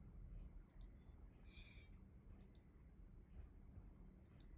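Near-silent room tone with faint computer mouse clicks in quick pairs, three times, and one brief soft rustle about one and a half seconds in.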